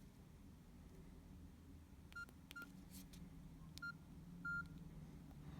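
Nokia 6120 classic keypad tones: four short beeps at the same pitch as keys are pressed, the last a little longer, with a few sharp key clicks among them.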